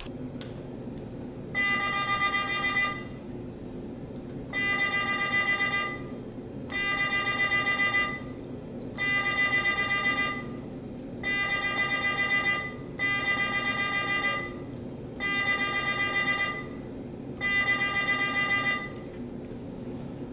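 Speaker in the transmitter tin can sending a 400-hertz data tone in eight separate bursts, each about a second and a half long, roughly two seconds apart. Each burst carries one character of text over the kite string to the receiving can.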